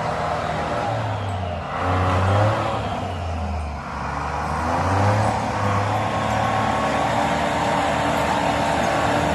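Timberjack 230 log skidder's diesel engine working as it approaches along the trail, its revs rising and falling several times before settling into a steady, louder run for the second half.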